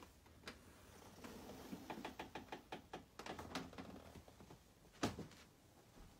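Faint scattered taps and clicks of a door being pushed open and footsteps across a carpeted room, with one sharper knock about five seconds in.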